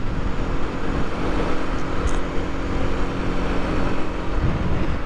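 Aprilia RS 125's four-stroke single-cylinder engine running at a steady cruise under way. The engine note holds steady, then changes about four and a half seconds in.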